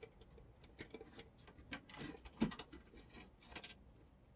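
Small kitchen items being handled and set into a drawer: faint irregular clicks, taps and rustles, with a louder knock about two and a half seconds in.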